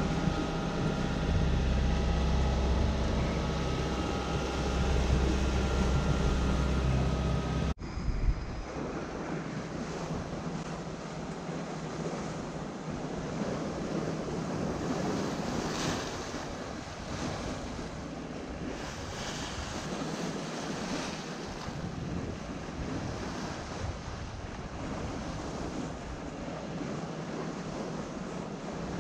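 Water rushing and splashing along a sailboat's hull as it sails, with wind buffeting the microphone. For the first eight seconds or so a louder low rumble with a steady hum sits under it, then cuts off abruptly, leaving the even wash of wind and water.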